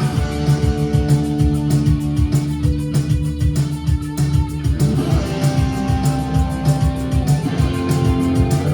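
A live rock band playing an instrumental passage: electric guitars holding chords over bass guitar and a fast, steady beat, with a chord change about halfway through.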